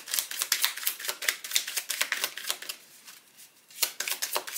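Oracle cards being shuffled by hand: a fast run of crisp card flicks and clicks, easing off about three seconds in and starting again near the end, as one more card is drawn from the deck.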